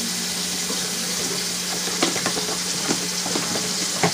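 Water splashing steadily into a kitchen sink as the cooking water is drained off a bowl of ramen noodles, over a constant low hum. From about two seconds in come a few sharp knocks, the loudest near the end.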